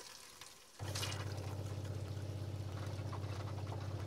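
A motorhome's pressurised water-system pump cuts in under a second in and runs with a steady low hum, as the hand-basin tap is opened during priming. Water runs from the tap into the basin, with a brief hiss about a second in.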